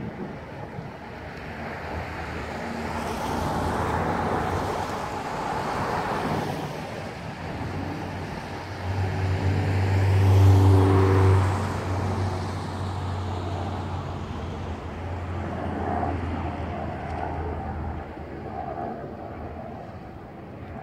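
Road traffic passing: vehicles go by one after another. The loudest, about ten seconds in, carries a steady low engine hum before fading.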